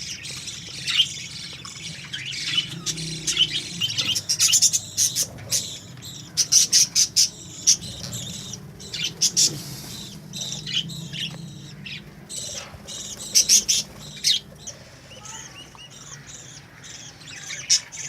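A colony of budgerigars (Australian parakeets) chirping and chattering, with dense short, sharp calls that swell into louder flurries several times.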